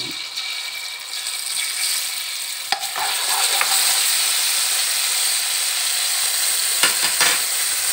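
Garlic and salted soybean paste frying in hot oil in a wok, sizzling while a wooden spatula stirs and scrapes them about the pan. The sizzle grows louder as it goes, with a sharp click near the three-second mark.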